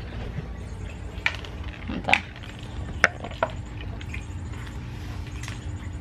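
Scattered light clicks and taps of a cat nosing and pawing at a plastic treat-dispenser puzzle toy, trying to work treats out of its drum and maze, over a low steady hum.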